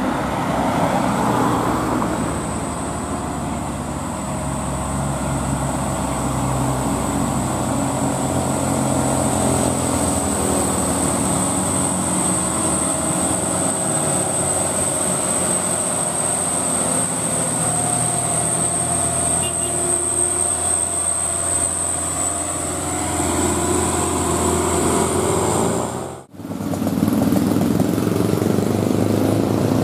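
Diesel engine of a heavily loaded Mitsubishi Canter dump truck running steadily under load as it climbs a steep grade, with a steady high whine over it. The sound drops out briefly about 26 seconds in, then a second Canter dump truck's engine is heard pulling uphill.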